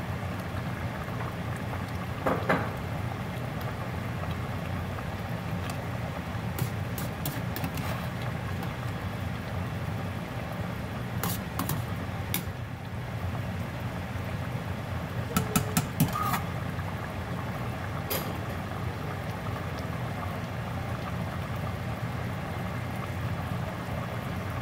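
Tomato-based pork stew simmering in a stainless steel pot over a steady low hum, with a few sharp clinks of a bowl and a metal slotted spoon against the pot as peppers are tipped in and stirred.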